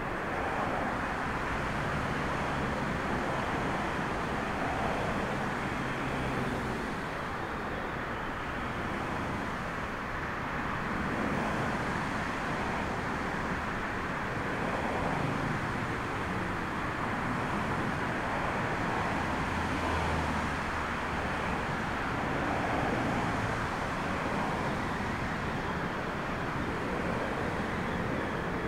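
Steady rushing noise of strong storm wind with a distant drone of traffic and jet engines; faint low hums come and go, and the level stays even.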